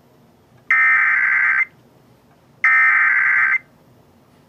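Emergency Alert System SAME header: two digital data bursts of about a second each, a second apart, the coded signal sent just before a severe weather warning is read out.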